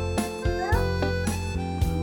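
Background music: pitched instrumental notes changing about twice a second over a steady bass, with a short rising glide about two-thirds of a second in.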